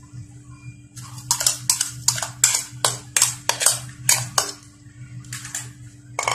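Quick scraping and tapping strokes of a spoon against a small seasoning container, about three a second, as MSG is shaken out onto minced pork in a stainless steel pan; the strokes stop about a second and a half before the end, then come twice more near the end.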